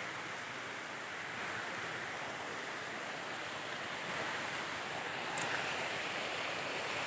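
Steady rush of water from a small waterfall spilling into a stream pool, with a brief tick a little past five seconds.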